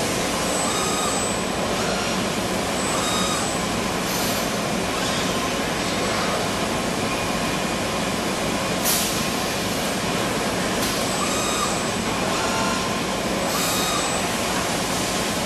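CNC tube bending machine running through a bend cycle: a steady machine noise, with faint brief whines and several short hisses of air, the loudest about nine seconds in.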